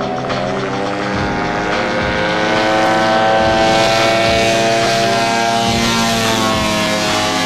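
Small fixed-wing UAV's propeller engine rising in pitch as it throttles up for the takeoff roll, then running steadily at high power as the aircraft lifts off.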